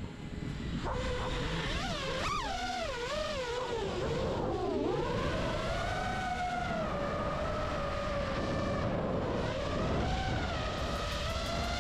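FPV quadcopter's motors heard from its onboard camera: a whine whose pitch swings up and down quickly in the first few seconds, then holds steadier with slow rises and falls as the throttle changes. Low wind rush runs under it.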